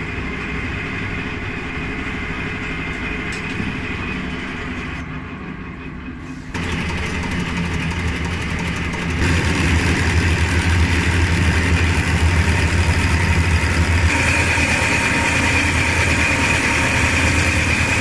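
Nissan TD27 diesel engine running on its freshly rebuilt injection pump, just after starting. It grows louder in two steps, about six and nine seconds in.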